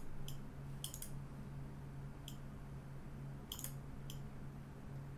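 A handful of short, sharp computer mouse clicks, some in quick pairs, scattered over a steady low electrical hum.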